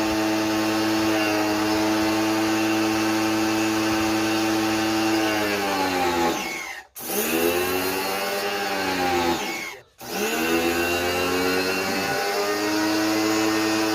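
Electric pressure washer running with a steady motor whine. Twice, about halfway through and again some seconds later, the pitch falls as the motor winds down and stops, then rises again as it starts back up.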